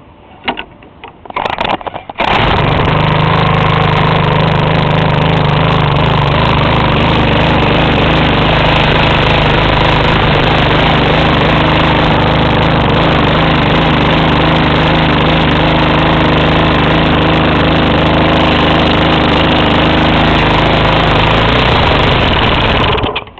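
Bladeless lawnmower engine pull-started with a couple of quick tugs on the recoil cord. It catches about two seconds in and runs loud and steady at constant high speed for some twenty seconds before cutting out near the end. The throttle is stuck wide open, which the owner puts down to a carburettor needing cleaning.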